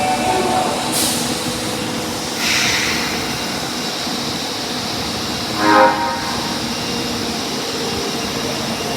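Tanimachi Line subway car 22618 with its train noise running steadily, broken by two short hisses of air in the first three seconds. About six seconds in comes a brief, loud pitched chime: the car's door chime, sounding abnormally.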